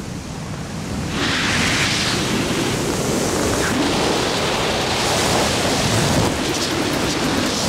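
Wind rushing over a skydiver's camera microphone in a steady noisy rush. It grows louder about a second in and keeps surging and easing.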